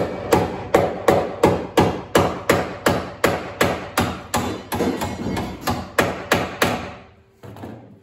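Hammer tapping on a sheet-steel body panel in a quick, even series of about twenty strikes, roughly three a second, stopping near the end after one last fainter tap.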